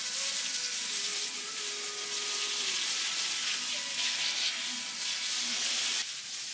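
Garden hose spray nozzle showering water onto a flower planter: a steady hiss of spray, which drops away near the end.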